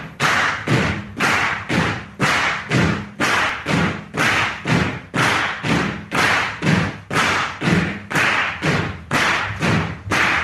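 Rock soundtrack music with a driving beat: a hard, even drum hit about twice a second.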